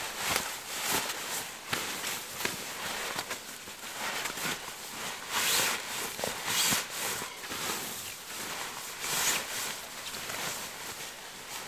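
A puffy sleeping bag's shell fabric rustling and swishing in irregular bursts as it is folded and pressed into a bundle by hand.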